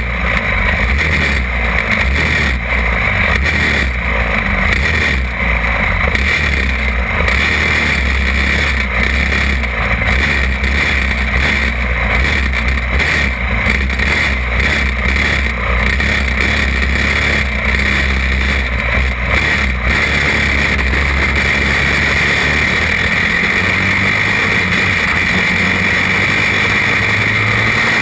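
Small go-kart (champ buggy) engine running hard close to the microphone, its note rising and easing at intervals of roughly a second through the corners, then holding steadier near the end.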